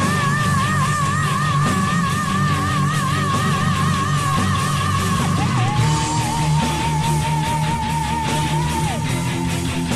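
Power metal song with heavy distorted guitars and drums under a long, high held note with wide vibrato, doubled by a second line above it. About halfway through it drops to a lower held note, which ends near the close.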